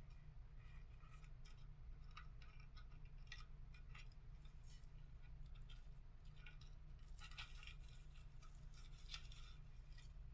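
Faint rustling and small clicks of Christmas decorations being handled and placed on an artificial tree, busiest near the end, over a steady low hum.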